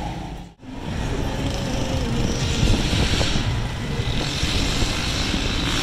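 Street traffic noise: a steady low rumble of engines, with vehicles passing twice as swells of hiss. The sound drops out briefly about half a second in.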